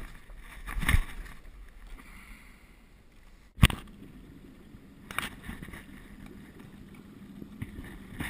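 Quiet open-air ambience in a small aluminium boat on a river, broken by a few scattered knocks and bumps. A sharp click about three and a half seconds in marks an abrupt change in the background, after which a faint low hum runs under it.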